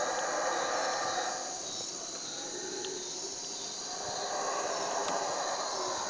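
Yucatán black howler monkeys roaring: a rough, rasping chorus that eases off a little in the middle and swells again near the end.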